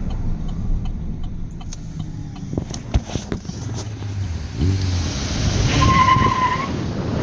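U-Haul rental truck's engine running steadily, revving up briefly about halfway through. Near the end a short steady high beep sounds for under a second.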